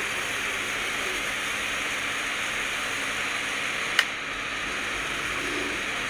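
Steady static hiss from a HackRF One software-defined radio's receiver audio, with one sharp click about four seconds in.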